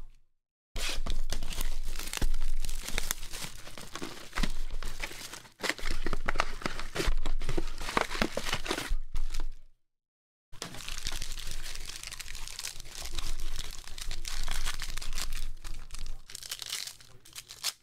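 Plastic shrink-wrap crinkling and tearing as a retail box of trading cards is ripped open, with cardboard and foil card packs rustling and clicking as they are handled. The sound cuts to dead silence for under a second twice.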